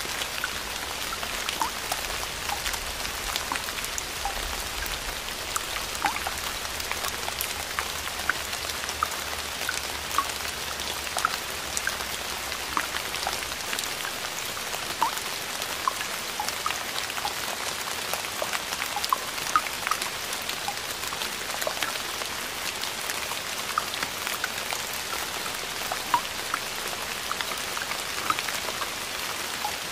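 A steady crackling hiss with many scattered sharp ticks, unchanging throughout, like rain on a surface. A faint low hum underneath stops about halfway through.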